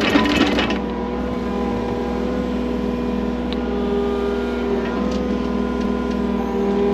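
Mini excavator's engine running steadily, with a short burst of clattering in the first second.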